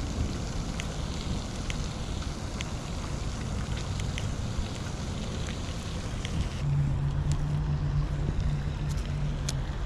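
Wind rumbling on the microphone outdoors, with a few faint ticks. About two-thirds of the way through a steady low hum from an unseen motor joins in and runs for about three seconds.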